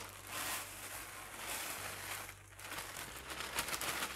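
A plastic bag crinkling and rustling as it is emptied of dry soap shavings into a bowl of soap batter.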